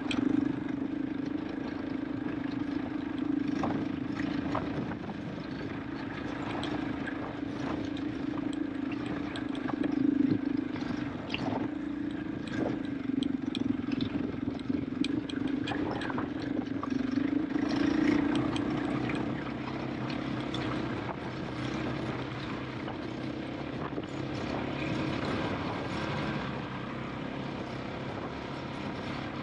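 KTM 500 EXC-F single-cylinder four-stroke engine pulling steadily on a climb, with a few throttle surges, dropping to a lower note about two-thirds of the way through. Short knocks from the tyres and suspension on loose stones run throughout.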